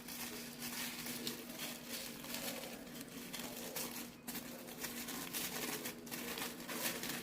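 Hands unwrapping a small packaged artwork: continuous crinkling and rustling of its wrapping, with many small crackles.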